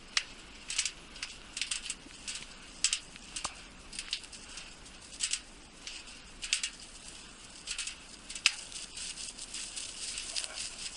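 Footsteps crunching in light snow: irregular crisp crunches, a few each second, with the loudest about eight and a half seconds in.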